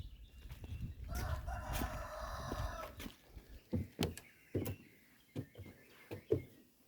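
A rooster crowing once, a single drawn-out crow of about two seconds, starting about a second in.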